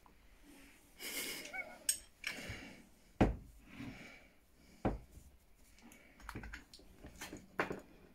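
Scattered handling noises in a small room: a brief rustle about a second in and two sharp knocks, near three and five seconds in.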